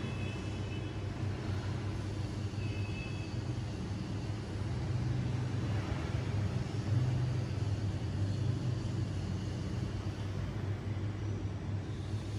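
Steady low rumble of motor traffic, with a couple of faint high tones near the start and about three seconds in.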